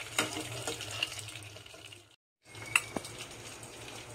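Crinkle-cut fries frying gently in oil on low heat in an aluminium pot, a steady fizzing with a few sharp clicks of a metal spoon against the pot. It breaks off for a moment about two seconds in, then the fizzing goes on with a few light clicks and taps.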